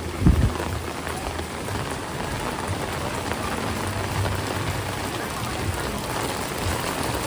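Heavy rain falling and pattering on surfaces in a steady hiss, with a low thump about a third of a second in.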